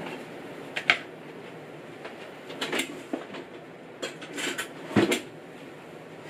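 A few scattered knocks and clatters of kitchen utensils being set down and handled on a counter, with the loudest, a thump, about five seconds in.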